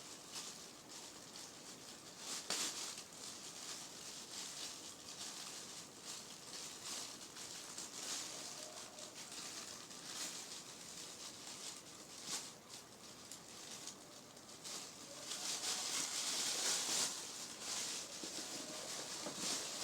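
Packaging being handled and opened: plastic wrapping crinkling and rustling, with a few short knocks, loudest about three quarters of the way through.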